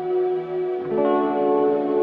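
Background ambient music: sustained, echoing tones that shift to a new chord a little under a second in.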